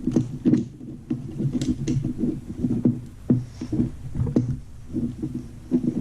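Irregular clicks and knocks of hands working on a metal gel blaster, pulling the motor's wire connectors off, over a low, uneven rumble.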